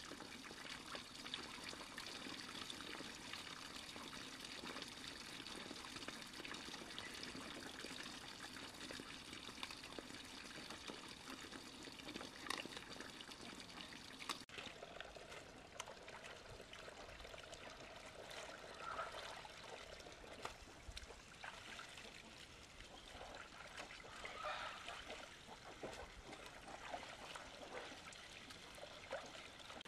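Water trickling and splashing steadily, with an abrupt change in the sound about halfway through.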